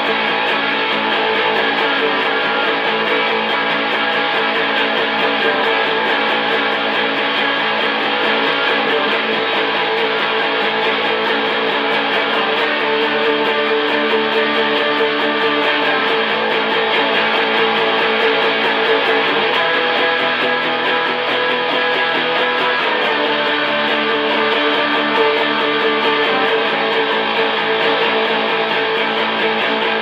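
Electric guitar strummed continuously in a steady rhythm, played loud through an amplifier.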